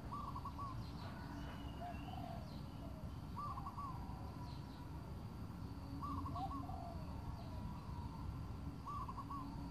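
A bird calling over and over: a short phrase of three or four quick notes, repeated about every three seconds, with a few lower calls between. A steady low background hiss runs underneath.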